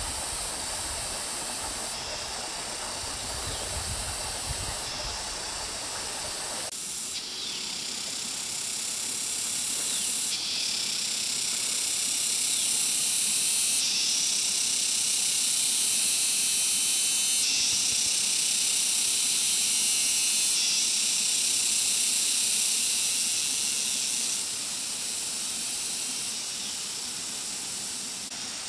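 Cicadas buzzing in a steady, high-pitched chorus that swells about ten seconds in and eases back near the end. A low rushing noise lies under it at first and stops suddenly about seven seconds in.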